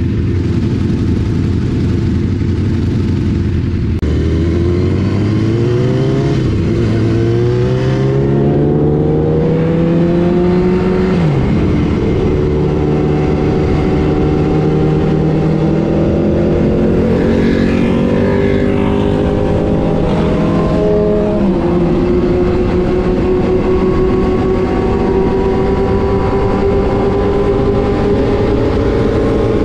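Sport motorcycle engine pulling away from a standstill: idling steadily for about four seconds, then accelerating through the gears, the pitch rising and dropping at each upshift (three shifts), before settling into a steady cruise that climbs slowly, with wind rushing over the bike.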